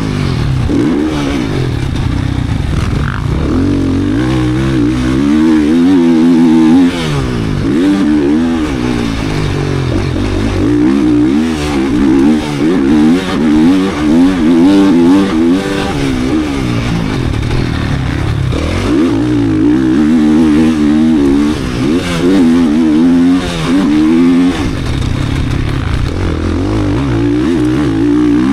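GasGas 450 motocross bike's race-built four-stroke single-cylinder engine under hard riding, repeatedly revving up and falling off, with short throttle chops and gear changes.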